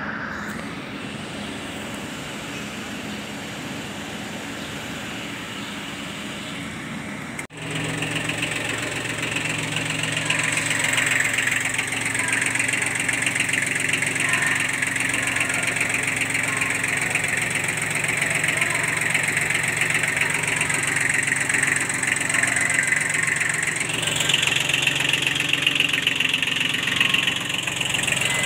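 Kubota B1502 compact tractor's diesel engine idling steadily after reassembly. The sound drops out for an instant about seven seconds in, then carries on louder.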